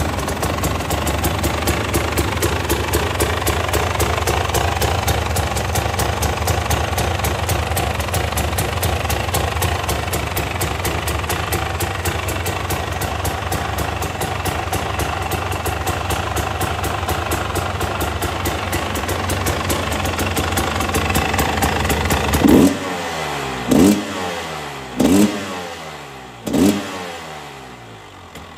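Husqvarna 300 TPI's single-cylinder two-stroke engine idling steadily. Near the end the throttle is blipped four times, each rev rising sharply and falling back, and then it settles to a quieter idle.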